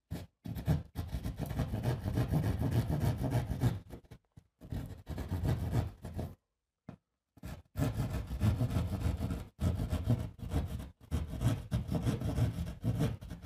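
Hand drywall saw cutting through gypsum drywall in quick back-and-forth strokes, stopping for about a second a little before the middle and then sawing on.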